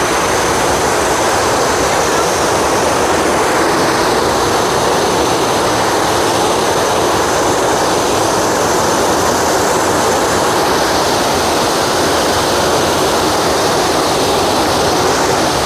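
Large waterfall: falling water in a loud, steady rush that never lets up.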